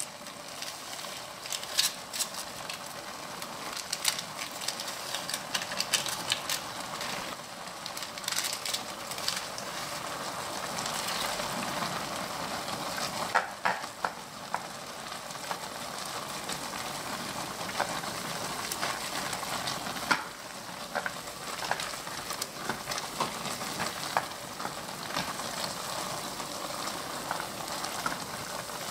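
Chapagetti noodles sizzling in a pan of hot sauce while they are stirred and tossed with wooden chopsticks. Frequent sharp clicks and scrapes of the chopsticks against the pan sound over the steady sizzle.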